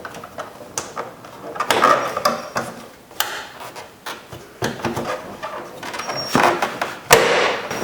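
Buick LeSabre rear door panel being pried off with a door panel clip tool: plastic retaining clips snapping loose, with clicks, scraping and rubbing of the panel against the door.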